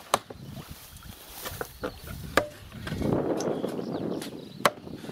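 A handful of sharp single knocks at irregular intervals, the loudest about two and a half seconds in and near the end: blows of a swung hand tool striking wood, over a low background rustle.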